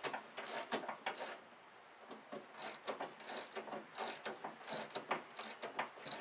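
Hand socket ratchet clicking as a bolt is turned on a snowmobile's steering linkage. There is a short run of clicks, a brief pause, then steady back-and-forth strokes at about three to four clicks a second.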